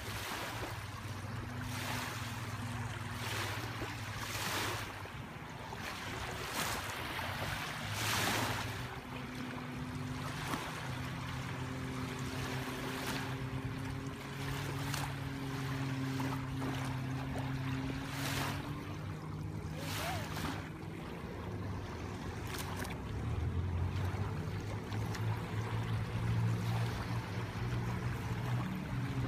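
A distant motorboat engine drones steadily, its pitch shifting a little and getting louder in the last few seconds. Small waves wash at the shore, with occasional gusts of wind on the microphone.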